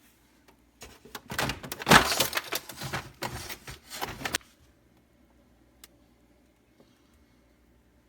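Rattling and clattering of parts being handled and moved for about three and a half seconds, followed by a single sharp click.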